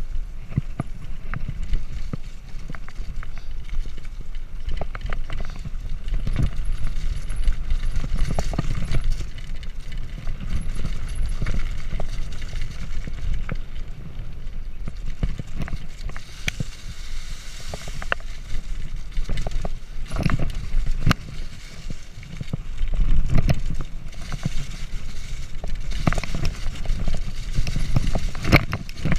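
Mountain bike descending a rough dirt and leaf-covered trail: tyres rolling over the ground under a steady low rumble, with frequent clicks and knocks as the bike rattles over bumps.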